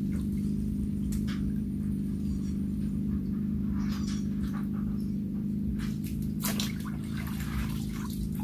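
Water swishing and dripping as a hand net is dragged through shallow water and lifted out, in a few scattered splashes. A steady low hum runs underneath.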